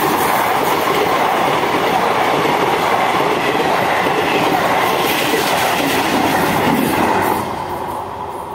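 Diesel passenger train passing close at speed, its coaches and wheels rushing loudly along the rails. The noise drops off about seven seconds in as the last coach goes by and the train moves away.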